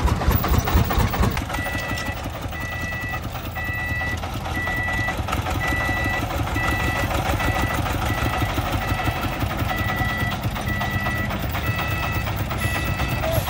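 A vehicle reversing alarm beeping in a steady, regular series, starting about a second and a half in. Underneath it a diesel engine runs steadily, with a low hum.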